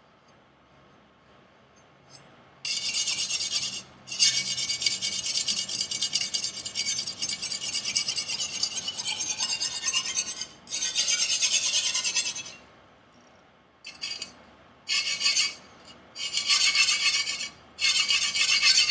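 Steel knife edge being scrubbed back and forth on a sharpening stone in rapid strokes, in several runs of a few seconds with short pauses between, after a quiet start. The sharpening is working off rolls left on a bad factory V-edge of a Chinese chef knife.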